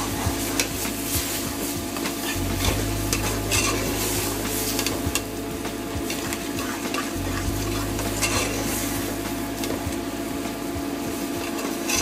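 A spoon stirring and scraping a sizzling onion-and-tomato masala gravy in a hot pan, the spoon clicking and knocking irregularly against the pan.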